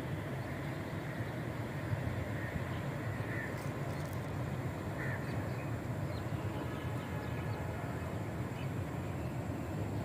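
Steady low outdoor rumble, with a few faint short bird calls.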